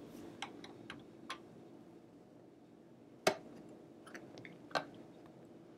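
Scattered light clicks and knocks from the mechanism and plastic housing of an opened-up 1970s Kenmore sewing machine as its belt pulley and wheel are turned and handled by hand. The loudest is a sharp knock a little past three seconds in, and a faint steady low hum runs underneath.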